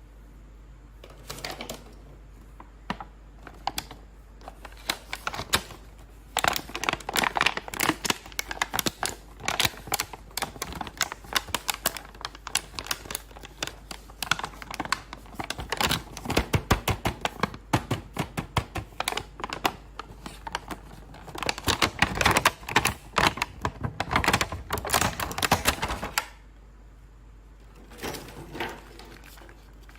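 Hard plastic action-figure toys and packaging being handled, clicking and rattling in quick dense runs of small knocks, starting about a second and a half in and stopping a few seconds before the end.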